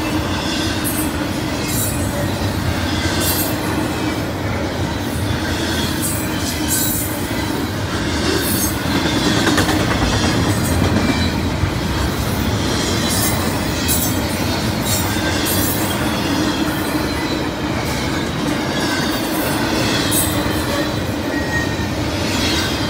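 Double-stack intermodal container train rolling past at speed: a steady heavy rumble of wheels on rail, with brief high-pitched wheel squeals every second or so.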